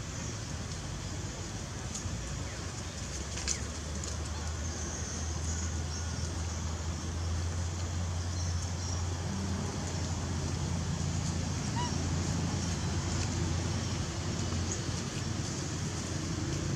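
Steady low droning hum over a faint hiss. It grows louder from about four seconds in and eases near the end.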